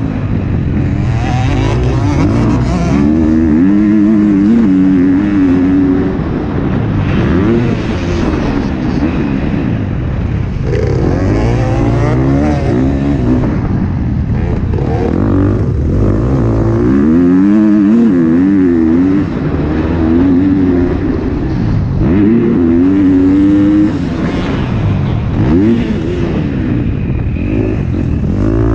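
2021 KTM 250 SX-F's single-cylinder four-stroke engine heard from onboard, revving up and dropping back over and over as the rider accelerates, shifts and backs off through the corners.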